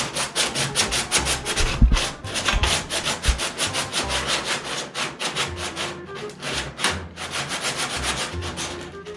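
Sandpaper scrubbing the sail panel of a 1969 Dodge Charger, working the paint down to bare metal in quick back-and-forth strokes, about five a second. A couple of dull low bumps come in around two and three seconds in.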